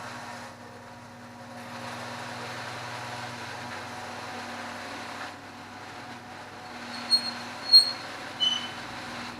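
A steady mechanical hum, like a vehicle running, with three short high-pitched squeaks near the end.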